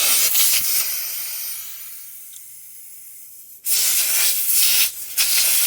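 Air hissing out of a punctured tubeless tire through the open puncture hole. The hiss dies down about a second in and comes back loud at about two-thirds of the way through.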